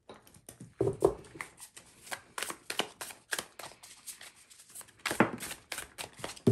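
A tarot deck being shuffled overhand between two hands: an irregular run of soft card slaps and flicks, several a second, a few of them louder.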